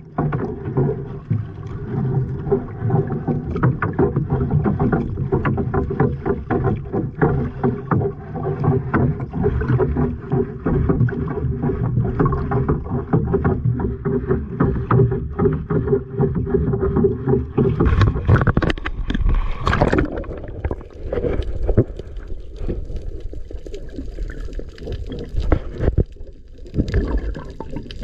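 Small boat on the sea with a steady engine hum, water noise and short knocks; about two-thirds of the way through the hum drops out and wind rumble on the microphone takes over.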